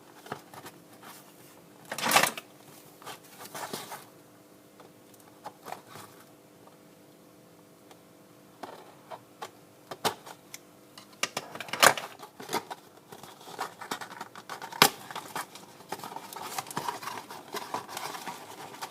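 Packaging being handled and opened by hand: irregular clicks, crinkles and tearing noises, with louder bursts about two seconds in, near the middle and about three-quarters through.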